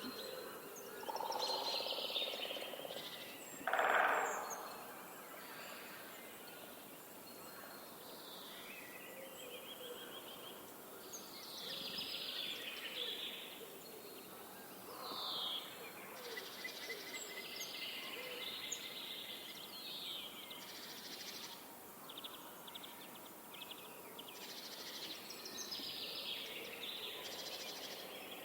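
Wild birds calling and singing over one another, with whistled phrases and several fast rattling trills, over a steady outdoor hiss.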